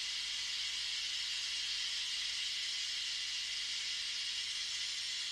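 Oxy-fuel micro brazing torch running with a steady hiss. Its neutral flame is heating the copper suction line at an air-conditioner compressor to unbraze the joint.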